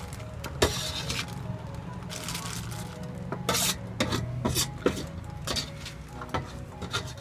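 A metal ladle scraping and clinking against a wide steel pan as spiced chickpeas are scooped into a foil packet, with a dozen or so sharp clinks and the crinkle of the foil.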